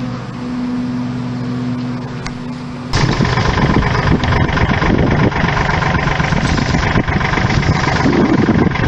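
Engine idling steadily, then about three seconds in a much louder, rougher engine sound abruptly takes over and runs on.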